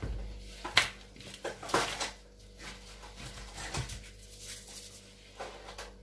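Potting soil being scooped by hand from a plastic bowl and dropped into a plastic flower pot: rustling with a few short knocks and patters, most of them in the first two seconds.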